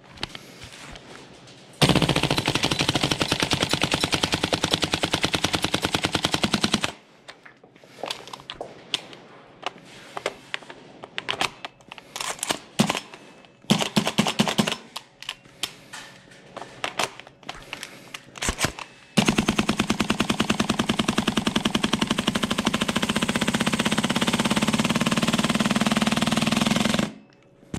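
King Arms TWS 9mm gas blowback airsoft rifle firing. A full-auto burst of about five seconds starts about two seconds in. It is followed by single semi-auto shots spread over about twelve seconds, with a short quick string in the middle. Near the end comes a second full-auto burst of about eight seconds.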